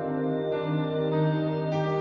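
Slow ambient background music with long sustained chords.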